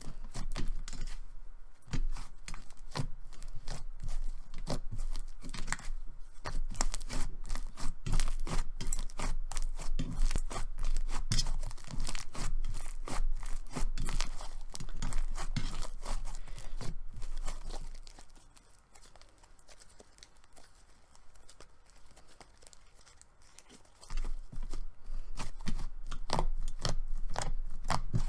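Soft clay-textured slime being stretched and worked by hand, giving dense, irregular crackling and tearing sounds. It goes much quieter for about six seconds around two-thirds of the way in, then the crackling starts again.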